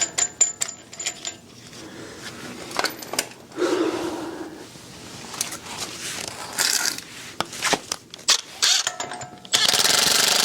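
Hand tools clicking and clinking on metal as the front axle nut goes onto a new wheel hub assembly, with a brief scrape. Near the end a loud, steady mechanical noise starts suddenly.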